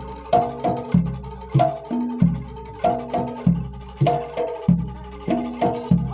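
Jaranan Dor ensemble playing a fast, repeating percussion pattern: sharp drum strokes and ringing pitched metal tones over a deep jidor bass drum that booms about every second.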